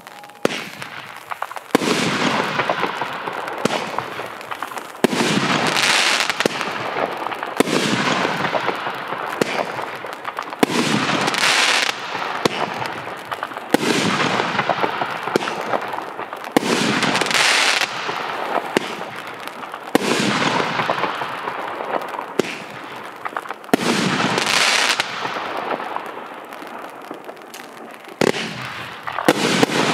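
Magnus 'True Legend' 12-shot consumer firework cake firing a string of aerial shells: sharp bangs every one to three seconds, each followed by a spell of crackling that fades away.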